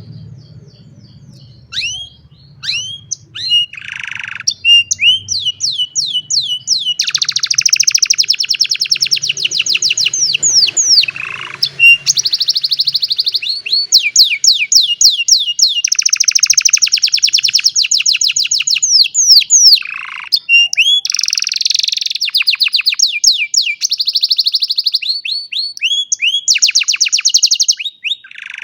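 An old canary singing loudly: a few separate downward-sweeping chirps at first, then long, fast trills and rolls broken by short pauses.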